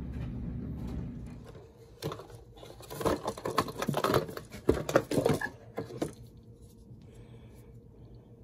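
Cardboard parts box being opened and handled as a new distributor rotor is taken out: a run of irregular crackling and rustling for about four seconds, starting about two seconds in.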